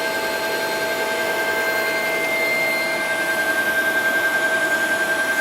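Pillarhouse Jade selective soldering machine running: a steady whirring hum with several steady whining tones held throughout.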